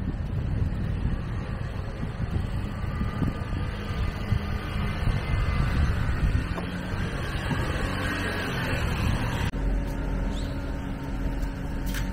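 Wind rumbling and buffeting on the camera microphone. About nine and a half seconds in it cuts to a steadier low hum with a sharp click near the end.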